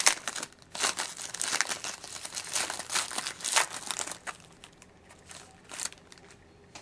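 Foil wrapper of a hockey card pack crinkling and tearing as it is opened by hand. Dense crackling lasts about three seconds, then a few scattered crinkles follow.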